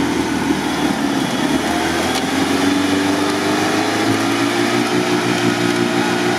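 Winch motor running under load as it pulls a mired 4x4 forward through mud: a steady whining hum that rises slightly in pitch over the first few seconds and then holds, with the vehicle's engine running underneath.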